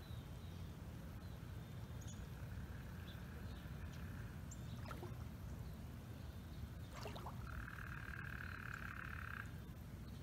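A frog trilling faintly, one long steady trill a few seconds in and a louder one, about two seconds long, near the end, over a steady low rumble.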